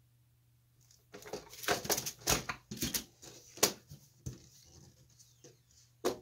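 A bar clamp being released and pulled off a wooden door frame, then the door lifted and handled on the bench: a run of clicks, knocks and rattles for a few seconds, lighter taps after, and one sharp knock near the end.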